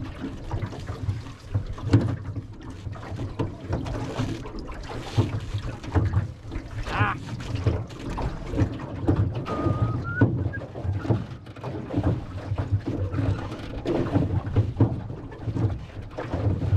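Rowing an aluminium rowboat: the metal oars knock and creak in their oarlocks stroke after stroke, with the blades splashing in the water and a couple of short squeaks.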